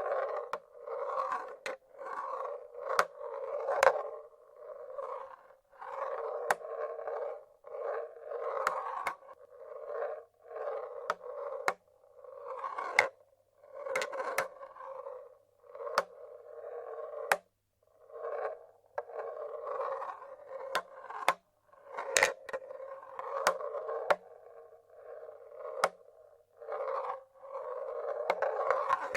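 Marbles rolling through a wooden marble-run machine: one short rolling run after another, each about a second long, with sharp clacks as marbles drop and knock against the wooden track and each other.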